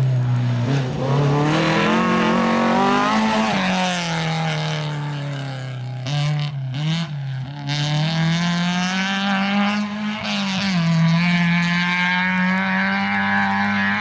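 Historic rally car engine at full throttle, revving up through the gears, with sharp drops in pitch at gear changes about three and a half and ten and a half seconds in. Around six to seven seconds in the revs sag on a brief lift off the throttle, with a few sharp cracks, before it pulls hard again.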